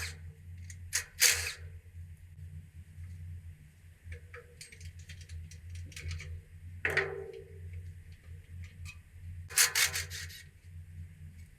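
Tools and metal engine parts being handled: a few sharp clanks, one cluster of them near the end, and scattered light clicks in between, over a steady low hum.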